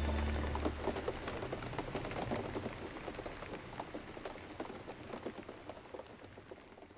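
The last sustained low chord of the music dies away in the first second, leaving falling rain with many separate drop hits. The rain fades out slowly and steadily.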